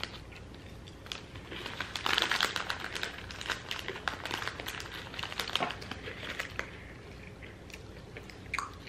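A small foil snack bag crinkling as a hand rummages inside it for chips, in bursts of crackling that are busiest in the middle.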